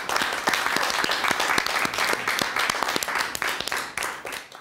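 Applause from a group of people, many hands clapping at once, dying away near the end.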